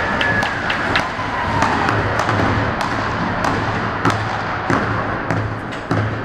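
Goal celebration sounds in an ice rink: scattered sharp claps and knocks, likely spectators clapping and sticks banging on the boards, echoing over music from the arena speakers.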